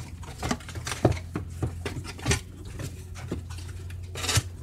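Hands handling packaging and small objects on a countertop: scattered light clacks and taps, with a short rustle about four seconds in, over a steady low hum.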